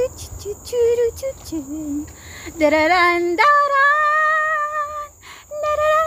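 A woman singing a slow wordless melody in long held, wavering notes, with a low note that jumps to a higher one about halfway through.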